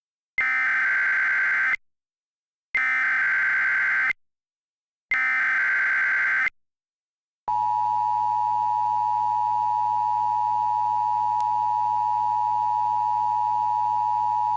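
Emergency Alert System SAME header: three bursts of warbling data tones, each about a second and a half long with short gaps between them. Then, about seven seconds in, a steady EAS attention tone starts and holds. Together they mark the start of a new alert message.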